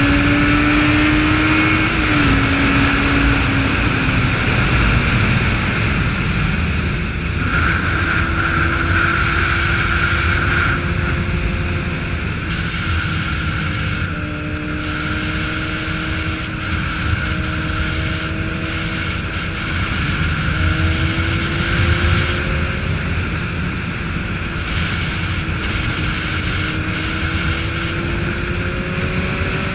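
Motorcycle engine running at a steady cruise on the road, its note wavering gently with the throttle and dipping briefly about two seconds in, under heavy wind noise on the microphone.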